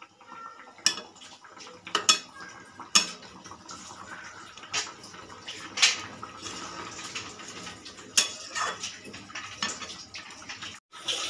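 Metal spatula clinking and scraping against a metal pan while stirring a simmering curry. About seven sharp, irregularly spaced clinks sound over a steady hiss from the simmering gravy.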